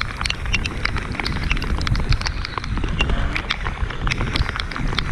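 Summer rain falling around a kayak: a dense, irregular run of sharp drop taps over a low rumble.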